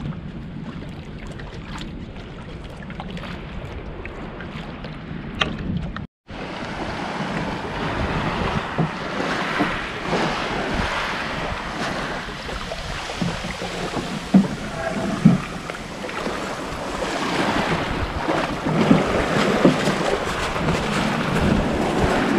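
Wind on the microphone and water splashing and lapping around a small wooden boat as it comes in to the shore, with a few light knocks. The sound cuts out briefly about six seconds in and is louder after.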